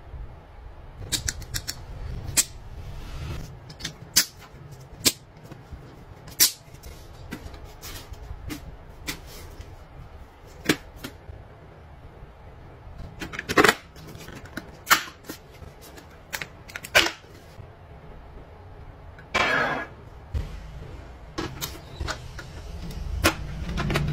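Irregular clicks and knocks from a full-face motorcycle helmet being handled: its hard shell, vents and liner tapped and knocked by hands, with a short scrape about three quarters of the way through.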